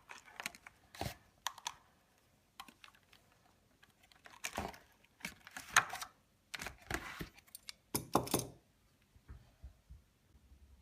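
Irregular clicks and short rustles of plastic toy packaging as a doll is worked free of its box, dying away near the end.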